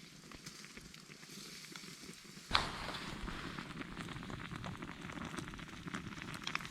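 Wood campfire crackling, with many small snaps. About two and a half seconds in there is one sharp crack, and the sound turns louder and fuller after it.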